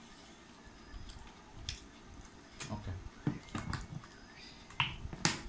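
Eating by hand from stainless steel plates: scattered soft clicks and taps of fingers and food against the plates, with chewing, and a sharper tap near the end.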